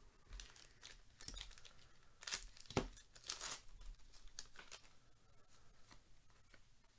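A baseball card pack's wrapper being torn open and crinkled by gloved hands, in a run of crackling rips that is loudest in the middle and fades near the end.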